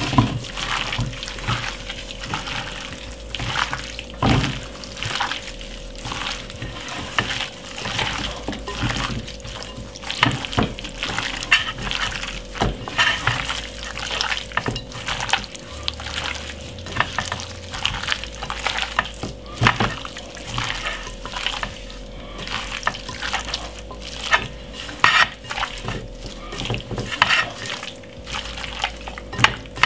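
Raw chicken pieces being mixed and rubbed by a gloved hand in a glass bowl with oil and seasonings for a marinade: wet stirring and handling sounds, many small irregular ones without pause. A steady faint hum runs underneath.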